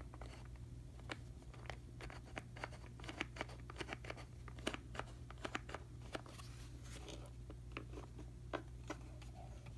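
Irregular light clicks and taps from handling hard plastic, several a second, over a low steady hum; no motor runs, as the RC boat fails to respond.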